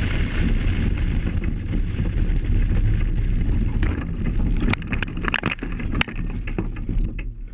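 Wind buffeting the microphone over the low rumble of a car driving at speed. About five to six seconds in, a cluster of sharp knocks and clattering as a car crashes alongside, with debris flying.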